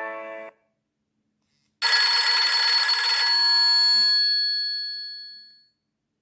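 Nokia 5310 XpressMusic ringtones: the last notes of one melodic ringtone cut off about half a second in. After a short gap, a bright, bell-like ringing tone sounds for about a second and a half and then rings away over the next two seconds.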